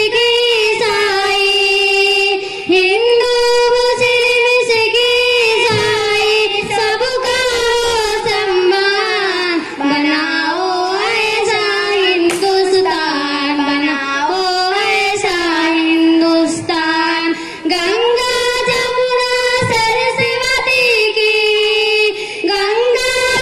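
Two girls singing a patriotic Urdu nazm together into handheld microphones, heard over a PA, in a slow melody with long held notes.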